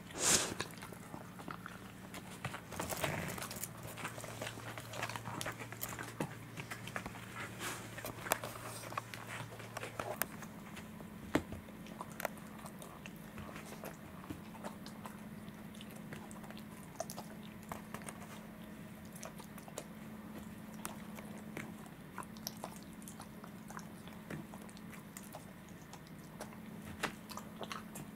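Welsh corgi gnawing and chewing a rawhide chew, giving irregular crunches and sharp clicks of teeth on the hide.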